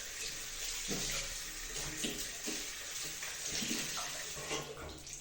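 Tap water running into a bathroom sink, splashing unevenly as a cleaning cloth is rinsed under it to get the product out.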